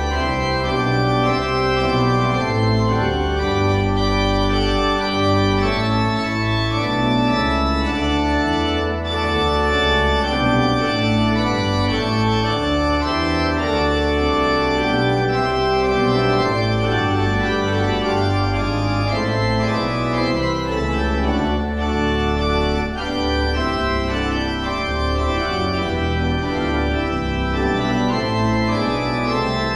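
Organ music: slow, sustained chords over a moving bass line.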